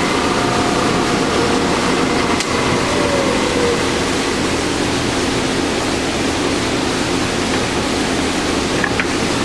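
Clausing 5902 variable-speed lathe running, with a faint steady whine over a loud rushing noise. About two and a half seconds in the whine stops and a short falling tone follows as the chuck comes to a stop, while the steady rushing noise continues.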